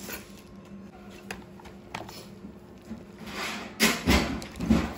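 Handling of takeaway food boxes and their plastic wrapping: light clicks, then rustling and a few sharp knocks near the end, over a low steady hum.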